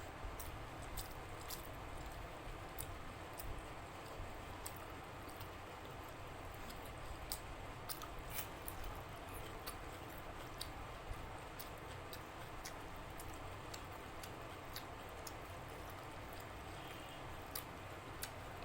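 A person chewing a mouthful of rice and curry, with frequent small wet clicks and smacks of the mouth over a steady low hiss.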